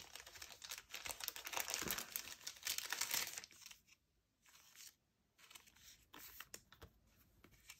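Thin plastic card sleeve crinkling as one is taken from its pack and a trading card is slid into it: a rustle for the first three seconds or so, then only a few faint ticks and rubs.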